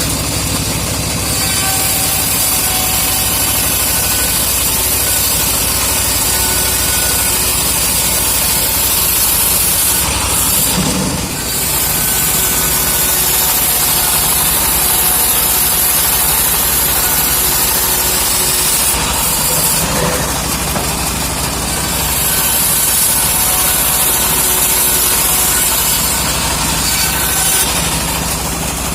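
Engine-driven homemade sawmill sawing teak: a steady engine drone under the hiss of the blade cutting through the wood, in long cuts broken by short pauses about ten and twenty seconds in.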